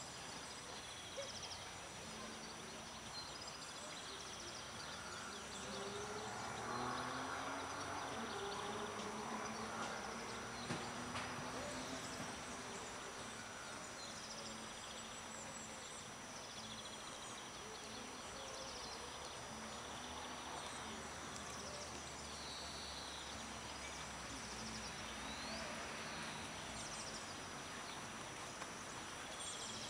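Outdoor ambience with small birds chirping on and off throughout over a steady background hiss, and faint distant voices.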